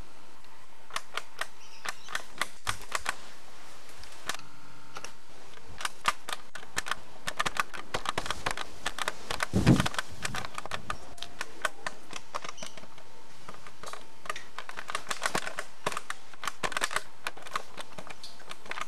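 Rapid, irregular clicking and tapping in clusters, like typing, with one louder knock about halfway through and a faint steady high tone underneath.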